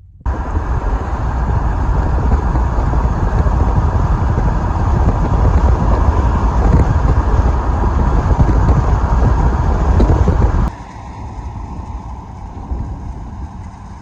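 Steady rumbling noise of a moving vehicle, which drops suddenly to a quieter steady noise about ten seconds in.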